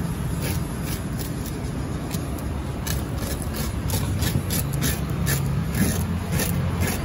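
Knife scraping and tapping against a tuna loin and a wooden chopping block in short sharp strokes, which come more often in the second half, over a steady low hum.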